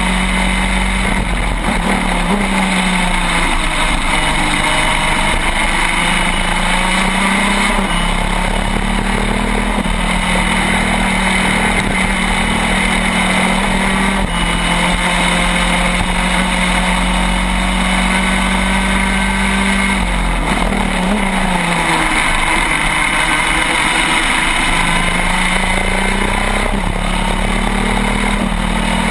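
Onboard sound of a shifter kart's two-stroke engine at racing speed, running hard through the gears. The pitch holds high and steps at gear changes, then dips as it slows for a corner about twenty seconds in and climbs again.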